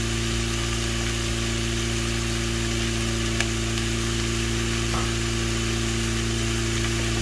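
Pork and onions sizzling as they sauté in a pot, under a steady low hum.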